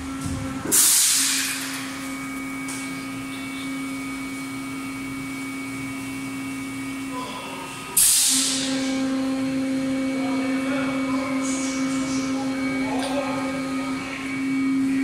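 Yawei 24-cavity PET preform injection moulding machine running: a steady machine hum, with a sudden sharp hiss just under a second in and again about eight seconds in as it works through its moulding cycle.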